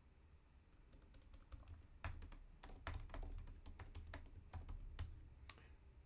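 Computer keyboard keys clicking in an irregular run as text is typed, faint, starting about a second in, with a low steady hum underneath.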